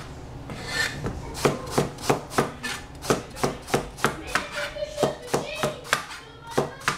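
Cleaver chopping eggplant on a plastic cutting board: a steady run of sharp knocks, about three a second, starting about a second in.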